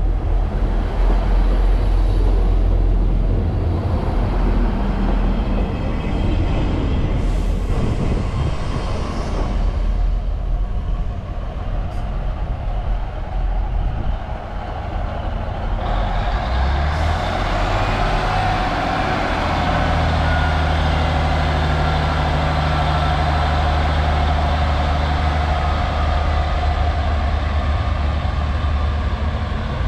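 A South Western Railway train running past, a low rumble of wheels and engine that eases through the first half. Then Class 153 single-car diesel unit 153376 pulls away under power: its underfloor diesel engine rises in pitch a little over halfway through and settles into a steady hum.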